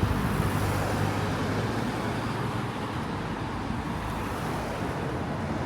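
Road traffic: a motor vehicle's low engine hum passes and fades over the first two seconds or so, over a steady outdoor rush of noise.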